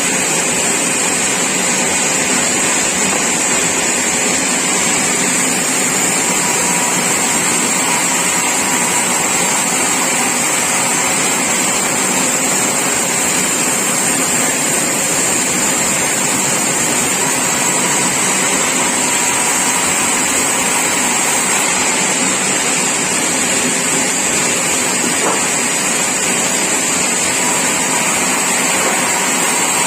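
Sawmill saw running, a loud steady machine noise with a high whine.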